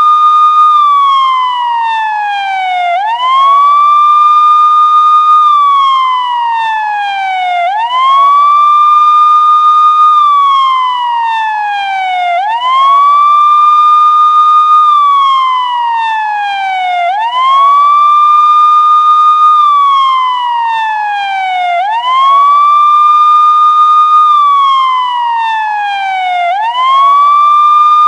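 Police siren sounding a slow wail: each cycle rises quickly, holds its high pitch for a moment, then slides steadily down, repeating about every four and a half seconds.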